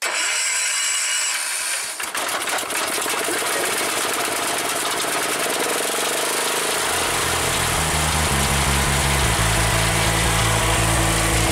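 John Deere 110 garden tractor's single-cylinder Kohler engine is cranked over and catches about two seconds in. It then runs steadily, with a heavier low rumble building in the second half. This is its first start after sitting two to three years.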